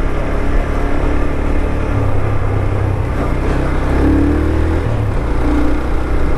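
Yamaha XTZ 250 Lander motorcycle's single-cylinder engine running while riding on a dirt road, its note changing with the throttle about two seconds in and rising again about four seconds in, over a steady rush of road noise.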